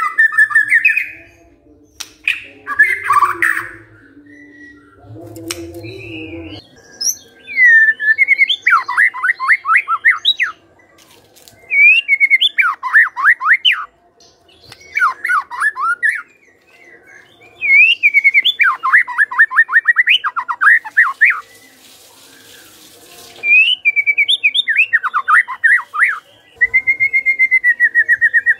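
White-rumped shama (murai batu) singing loud phrases, each a quick run of falling notes, with short pauses between them, and a long wavering whistle near the end.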